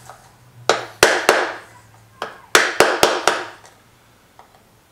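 Sharp metallic taps of an adjustable wrench used as a hammer on a screwdriver set in the motorcycle's clutch mechanism, driving at it to loosen it: three quick blows, then a run of about five more, each ringing briefly.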